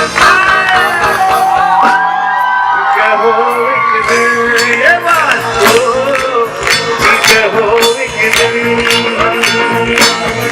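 Live band playing amplified pop-rock: a gliding lead melody over guitar and held chords, with the drums picking up a steady beat about four seconds in.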